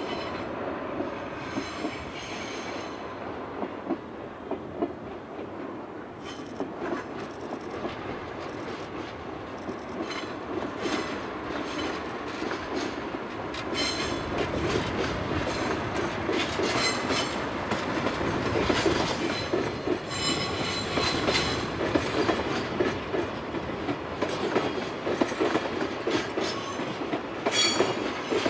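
Freight train passing: the DD16 diesel-hydraulic locomotive's engine, then a long string of container flat cars rolling by with a steady clickety-clack of wheels over rail joints. It grows louder as the wagons come close, with a thin wheel squeal now and then on the curve.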